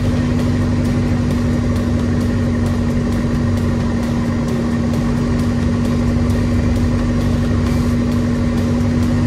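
Single-engine light plane's piston engine and propeller running steadily at climb power just after takeoff, heard inside the cockpit as a loud, even drone with a steady tone. The sound falls away abruptly at the end.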